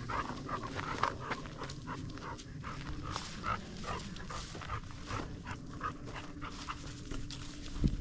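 A dog panting in quick, short breaths.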